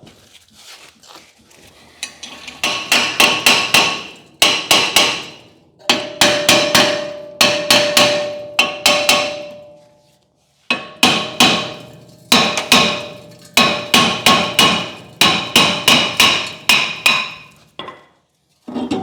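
A hammer striking metal in rapid runs of several blows a second, each blow ringing out. There are two long runs of hammering with a short pause about ten seconds in.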